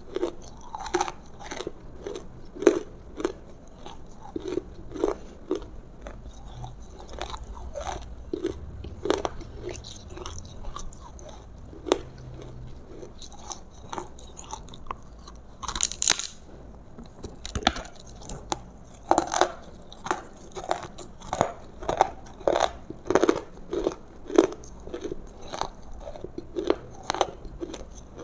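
Close-miked chewing and crunching of roasted food, with bites and chews coming about once or twice a second. There is a quieter stretch in the middle and a brief hissy rustle about 16 seconds in.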